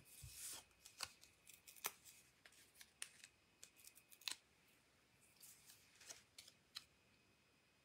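Faint, scattered ticks and rustles of paper being handled by hand: a small card sentiment label being fitted with adhesive foam pads to raise it.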